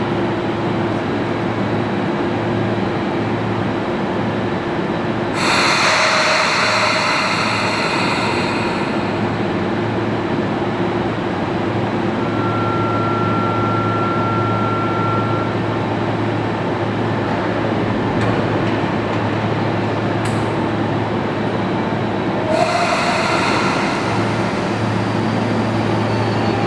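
Steady air-conditioning noise and hum in an underground railway station. It is broken by two loud hissing bursts a few seconds long, one early and one near the end, and by a single steady tone lasting about three seconds in the middle.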